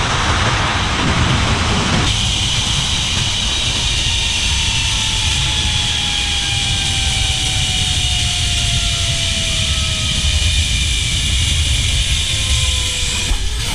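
Zip-line trolley running along the steel cable, with wind rushing over the helmet camera's microphone. A thin whine from the trolley's pulleys falls slowly in pitch as the rider slows toward the landing platform.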